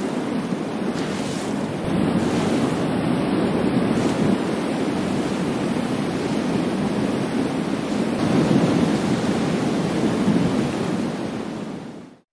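Sea surf washing against shore rocks, with wind rumbling on the microphone. Steady throughout, fading out near the end.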